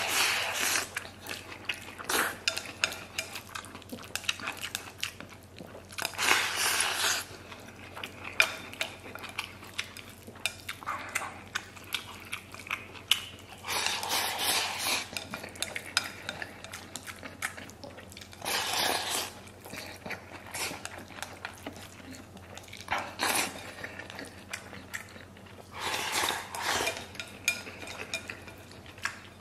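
Chopsticks clinking and scraping against a ceramic bowl as rice is stirred and scooped: many short clinks throughout, with longer scraping bursts every few seconds.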